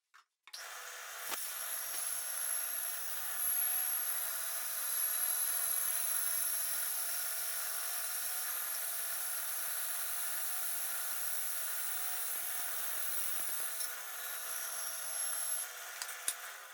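A power tool running steadily with a high whine, starting about half a second in and cutting off near the end.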